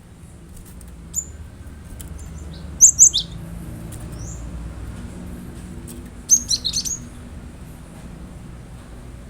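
Cinereous tit (gelatik batu) calling in short, high, sharp notes: a loud cluster about three seconds in and a quick run of notes just past six seconds, over a steady low rumble.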